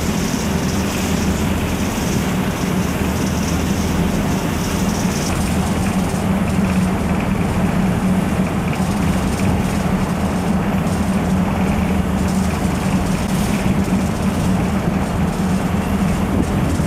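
Steady, unbroken engine drone with a constant low hum under a wash of noise.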